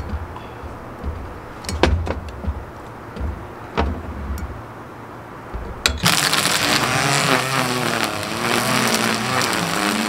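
A few sharp clinks of cutlery and glass on plates over a low background. About six seconds in, a string trimmer cuts in loud, its motor whine wavering in pitch as the line cuts weeds.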